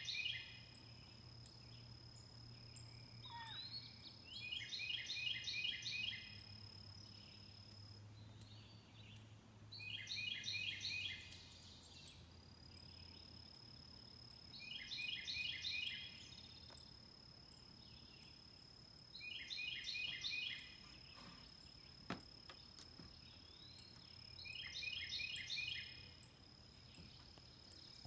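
Night insects calling: a steady high-pitched hum, a regular high ticking about one and a half times a second, and a buzzy pulsed trill that repeats about every five seconds. No bobcat call is heard.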